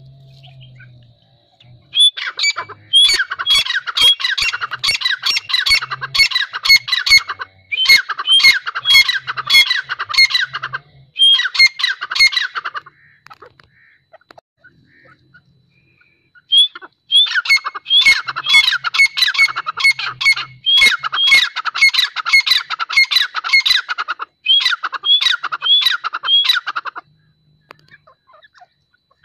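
Grey francolin calling: fast runs of sharp, repeated notes in two long spells, each broken into three bursts, with a pause of a few seconds between the spells.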